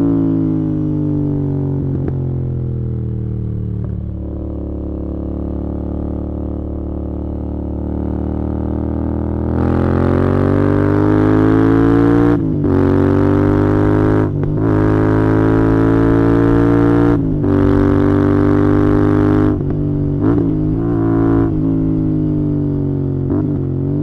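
Royal Enfield Interceptor 650's parallel-twin engine and exhaust heard onboard while riding: a steady drone that holds lower revs at first, then grows louder with revs slowly climbing about ten seconds in, cut briefly three times, before easing off with a few short rises in pitch near the end.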